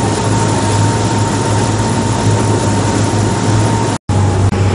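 Tour boat's engine running steadily under way: a low drone with an even rushing hiss over it. The sound cuts out for an instant about four seconds in.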